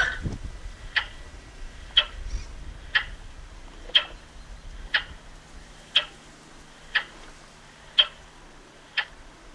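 Regatta start timer sounding a short pip once a second, counting down the last seconds to the start signal.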